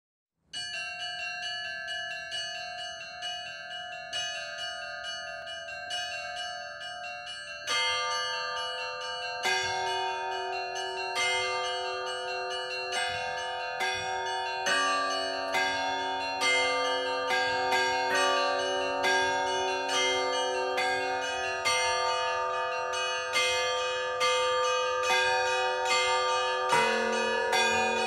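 Russian Orthodox bell ringing on the bells of the Epiphany Cathedral bell tower in Kazan, struck by hand by bell ringers. It opens with a quick repeating pattern on the small high bells. More bells join at about 8 and 10 seconds, a deeper bell comes in around 15 seconds, and lower, bigger bells enter near the end as the peal grows louder.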